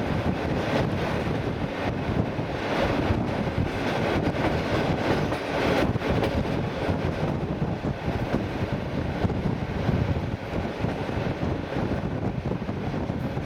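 ER9T electric train running at speed: a steady rumble of wheels on the track, with wind buffeting the microphone.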